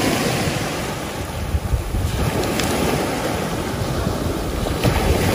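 Surf washing in over a shingle beach, with wind buffeting the microphone.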